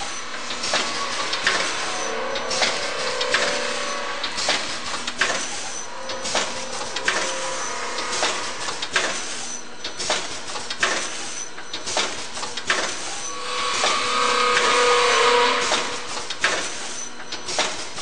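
Golpack VF 160 vertical form-fill-seal packaging machine running, with sharp mechanical clacks repeating about once a second as its jaws seal and cut bags. About fourteen seconds in, a louder rushing noise lasts about two seconds.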